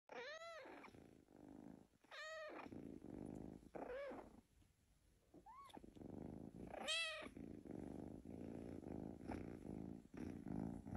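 Kitten purring faintly while being stroked, with about five short, high mews, each rising and falling in pitch.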